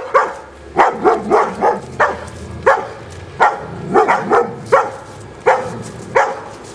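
German shepherd barking repeatedly, a sharp bark or two about every second, at a large inflatable cat decoration it can't make out.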